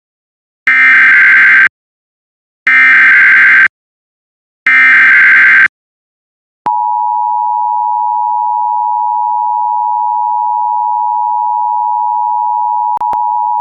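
Emergency Alert System tornado warning tones: three one-second screeching digital header bursts, each two seconds apart, then a steady two-note attention alarm tone. These tones mark the start of an official weather warning broadcast.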